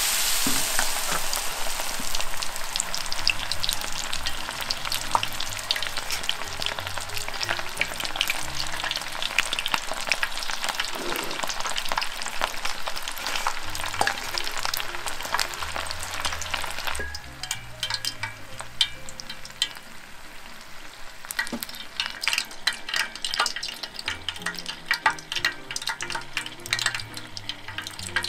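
Battered shrimp tempura deep-frying in rapeseed oil at about 180 °C: a dense, loud sizzling crackle as it goes in. About two-thirds of the way through the sizzle grows quieter and the crackles more spaced out as the tempura cooks.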